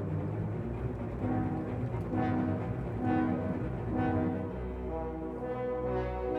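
Orchestral background music: brass, French horn-like, playing sustained notes that change about once a second, over low held tones.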